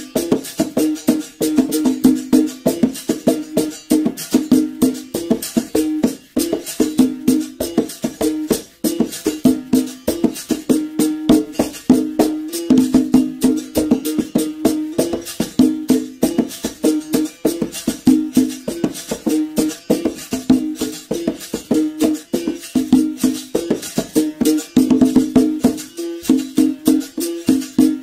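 Capoeira berimbau playing: quick stick strikes on the steel wire, switching back and forth between two low notes as the stone presses and releases the string, with the shaken rattle of a caxixi under the strikes.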